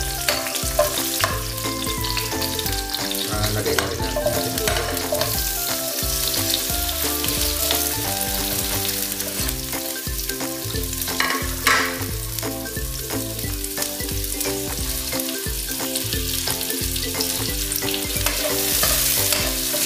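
Garlic sautéing in hot oil in a nonstick frying pan, sizzling steadily, with a spatula scraping and stirring against the pan in many short clicks. Onion pieces join the garlic partway through.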